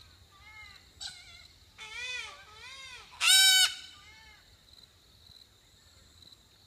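A white cockatoo calling from a gum tree overhead: a run of short, arched squawks, then one much louder, harsh screech a little over three seconds in. The calls stop about four and a half seconds in. It is an alarm at a person sitting near its nest.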